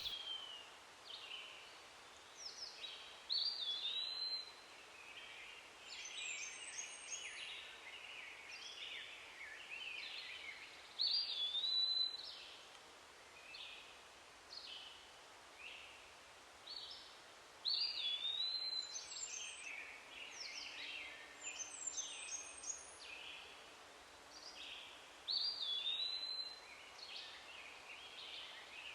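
Faint birdsong: small birds chirping, with one louder song phrase repeated about every seven seconds.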